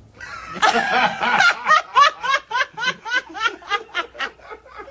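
Laughter: a loud, breathy outburst, then a quick run of short "ha" pulses, about four a second, that slowly die away.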